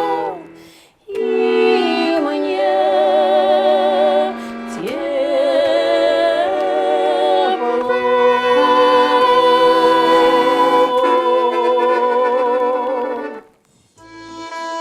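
Two women singing in duet, drawing out the last phrase of a Russian folk-style song in long held notes with vibrato, ending together on a long final note about 13.5 seconds in. Near the end a garmon (button accordion) starts up with quick short notes.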